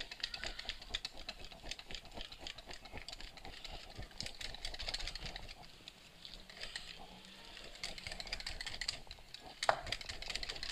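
Metal wire whisk beating pancake batter in a glass bowl: rapid, irregular clicking and tapping of the wires against the glass. The clicking thins out for a couple of seconds past the middle, and there is one louder knock near the end.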